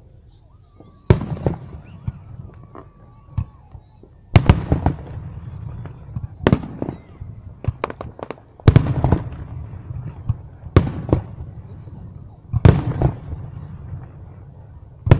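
Aerial fireworks shells bursting overhead: a series of loud bangs about two seconds apart, each followed by a crackling, rumbling tail.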